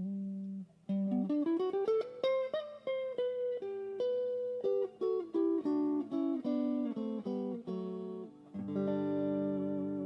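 Aria Pro II XR series ST-3 electric guitar played unaccompanied: single-note lines with a quick rising run in the first couple of seconds. Near the end a chord is struck and left to ring.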